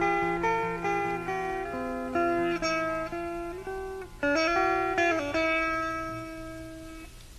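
Music: a plucked guitar playing a slow picked melody, each note ringing and dying away, with a few sliding notes partway through; it fades out near the end.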